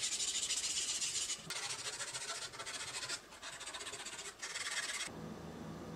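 Hand wet-sanding a CA-glue-coated 3D-printed PLA pattern with 600-grit sandpaper: a steady hiss of back-and-forth rubbing with a few short breaks, stopping about five seconds in.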